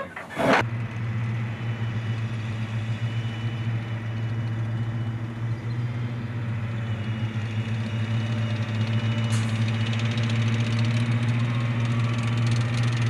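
Bradley fighting vehicle's diesel engine running steadily as the tracked vehicle drives closer, growing gradually louder, with more rattle and clatter in the last few seconds. A short loud burst of noise comes about half a second in.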